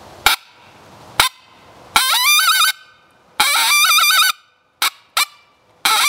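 Mouth-blown coyote howler sounding a coyote challenge call: two short, sharp barks, then two longer howls that rise in pitch and then waver, then two more barks and another howl starting near the end. It is the aggressive call of a dominant coyote challenging a territorial dog.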